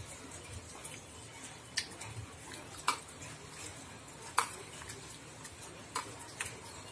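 Raw prawns being mixed by hand in a wet egg-and-flour marinade in a plastic bowl, quiet and soft, with a few sharp irregular clicks against the bowl.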